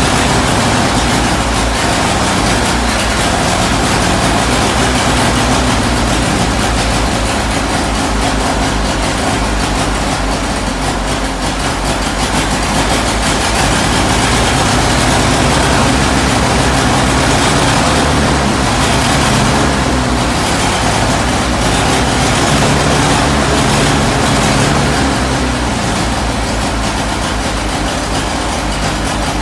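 1926 Chevrolet Superior K's four-cylinder engine running steadily at idle, alive again after more than 35 years without running.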